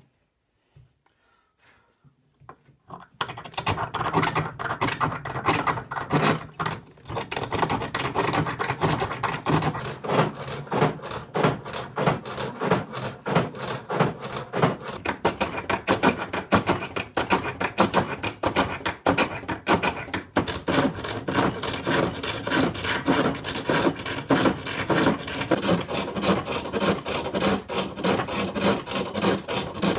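A chisel cutting into a lemon wood billet turning on a homemade foot-powered lathe. A continuous scraping rasp starts about three seconds in and swells and fades in repeated strokes.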